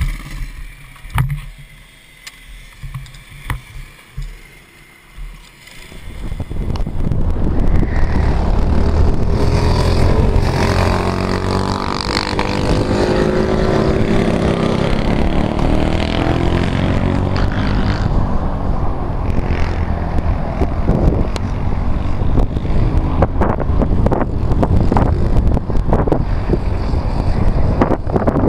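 Kart engine running hard, its pitch rising and falling, mixed with heavy wind noise on the microphone. For about the first six seconds it is quieter, with a few irregular low thumps, before the loud engine sound comes in.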